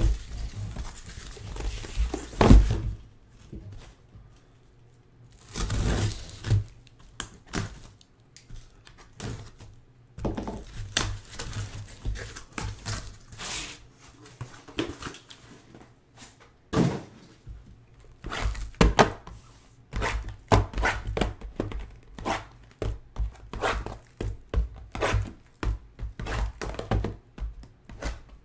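Cardboard card boxes being taken out of a shipping case and set down on a table: a string of irregular thunks with cardboard scraping and rubbing, the loudest knock about two and a half seconds in and a longer scrape around six seconds in.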